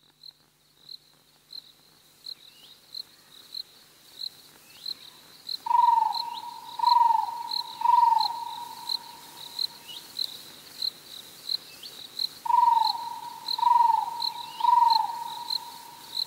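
Crickets chirping steadily, about one and a half chirps a second, fading in. Twice, a run of three louder short calls, each falling in pitch, joins the chirping.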